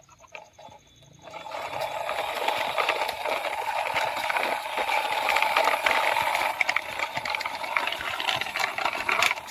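Plastic toy crane truck pushed by hand over a rough concrete wall, its plastic wheels rolling and rattling with many small clicks, starting about a second in.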